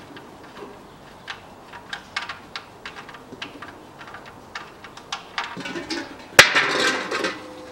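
Small scattered clicks as the oil drain plug is turned out by hand, then a sharp metallic clank on the steel drain basin, which rings on, with a short rush of oil pouring into it.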